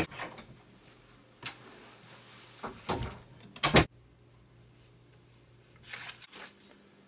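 Papers and a ring binder handled on a desk: rustling page turns and knocks, the loudest a sharp clack about three and a half seconds in, over a faint steady low hum.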